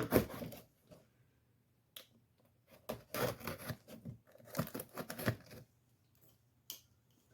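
Plastic packaging of a carburetor rebuild kit being torn and cut open, with crinkling in several short spells.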